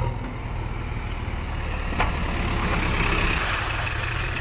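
JCB backhoe loader's diesel engine running steadily at low revs. About halfway through there is a sharp click, and after it the engine sound carries more hiss and a faint high whine.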